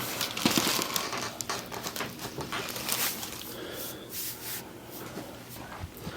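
A long breath out near the start, then soft rubbing and scattered small clicks as hands press and move over the patient's body and the treatment table.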